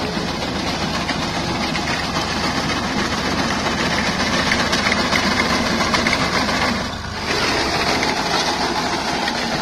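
Small farm tractor's engine running steadily as it drives a front-mounted reaper through standing wheat. The sound drops briefly about seven seconds in.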